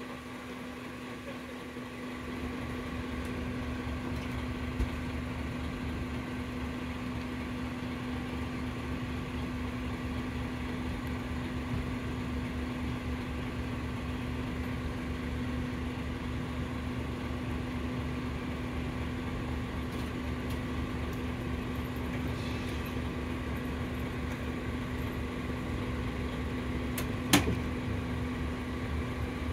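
Mitsubishi Fuso Aero King double-decker bus standing with its diesel engine idling: a steady low throb under a constant hum, stepping up slightly about two seconds in. A single sharp click near the end.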